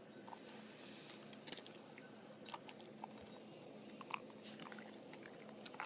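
A corgi eating from its bowl, faint crunches of dog food between its teeth coming in scattered ones and twos.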